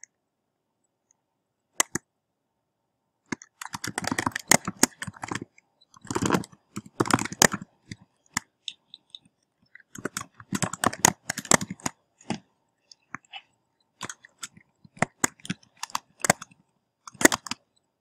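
Computer keyboard typing: rapid keystrokes in bursts of a second or two, separated by short pauses.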